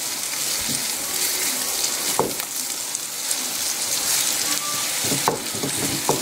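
Sliced onion and whole jalapeños sizzling as they fry in a skillet, steady throughout, while a silicone spatula stirs them, with a few brief knocks of the spatula against the pan.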